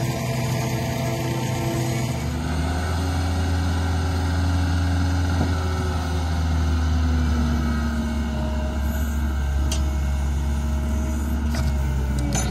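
Heavy machine's diesel engine running steadily; its low, deep note gets stronger about two seconds in.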